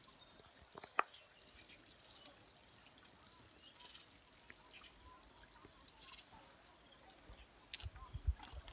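A faint, steady, high-pitched insect trill that pulses rapidly, with a sharp click about a second in and footsteps on the trail near the end.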